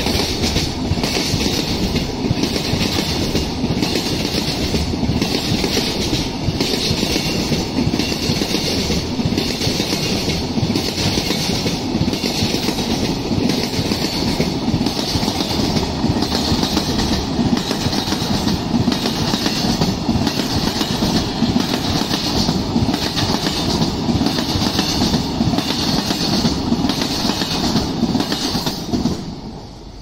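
A freight train of container flatcars passing close by, its wheels clacking over the rail joints in a steady rhythm. The sound drops away about a second before the end as the last wagon goes by.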